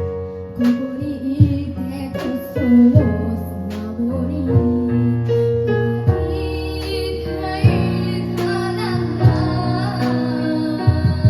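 Live kids' band performing a song: a young girl singing over keyboard, with drum hits.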